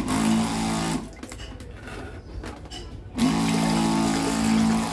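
Dual-motor 12 V DC pressure pump running with both motors, a steady hum. It is switched on, cut off about a second in, and switched on again about three seconds in. It runs unloaded with an open outlet, pushing water freely through the hose.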